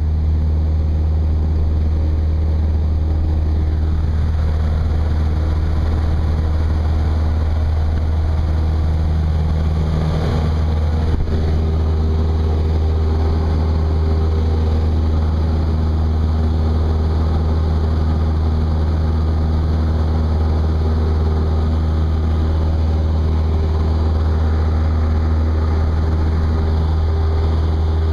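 Single-engine light aircraft's piston engine and propeller droning steadily, heard inside the cabin during the takeoff roll and climb-out.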